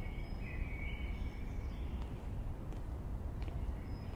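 Steady low background ambience rumble, with a faint thin high tone through the first two seconds.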